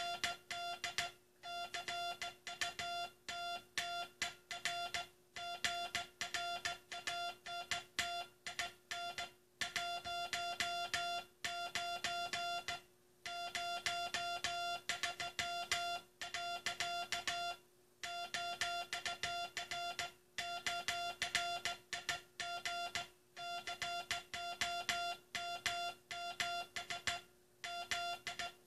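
Morse code (CW) being sent as a keyed tone: a single mid-pitched note switched on and off in dots and dashes at a steady pace, with brief pauses between words. It spells out the U.S. Coast Guard's last CW message.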